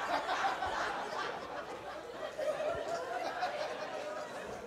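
Audience laughing and chuckling, the laughter slowly dying down.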